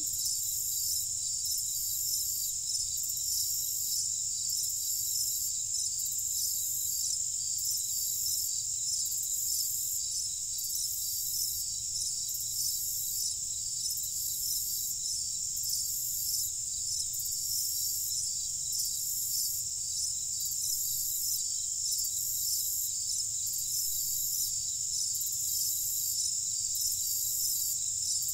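A steady chorus of crickets trilling at night, with a higher chirp pulsing about once a second over a faint low rumble.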